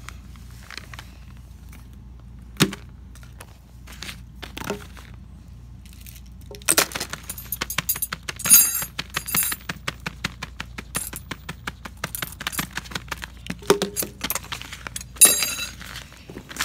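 Plastic fidget toys being handled and moved about on a paper board. A few single clicks come first, then from about seven seconds in a dense run of clattering and clicking.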